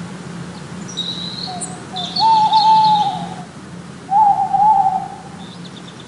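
Owl calling: two drawn-out, wavering calls of about a second each, the first about two seconds in and the second about four seconds in, with faint high bird chirps behind.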